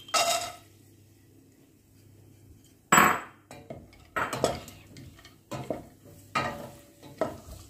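Nuts and raisins tipped from a bowl into a stainless steel pan of ghee, then stirred with a wooden spatula: a short clatter at the start, a sharp knock about three seconds in, then a series of knocks and scrapes of the spatula against the pan, about one a second.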